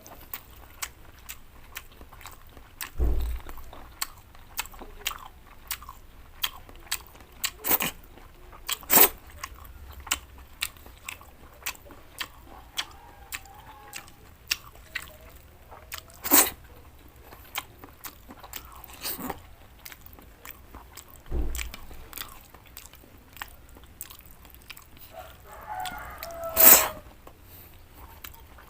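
Close-miked eating of cooked vegetables such as carrots and string beans: chewing and crunching with many sharp mouth clicks and smacks, a few louder than the rest. There are two low thumps, about 3 seconds in and 21 seconds in.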